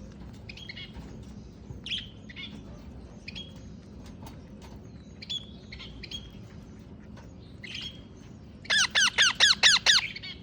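Pet parrot calling: scattered short, soft chirps, then near the end a quick run of about eight loud, high squawks.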